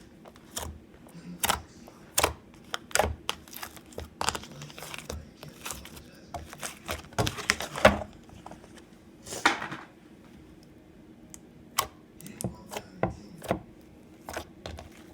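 Slime being squeezed and worked by hand, giving irregular sharp clicks and crackly pops, with a denser run of them about halfway through.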